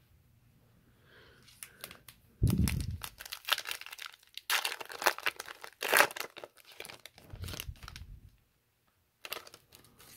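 Foil hockey card pack wrapper being torn open and crinkled by hand, a crackling run of tears and crinkles that starts about two and a half seconds in.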